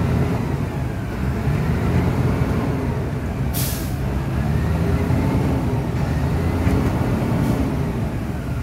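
Asphalt paver's diesel engine running steadily with a low rumble. A short, sharp hiss comes about three and a half seconds in, and two fainter ones near the end.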